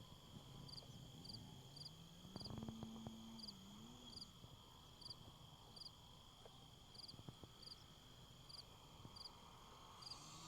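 Faint, distant RC aerobatic plane's motor, its pitch rising and falling with throttle and passes, swelling briefly about two and a half seconds in. Under it, high chirps repeat about twice a second from insects or frogs, with a steady high insect whine.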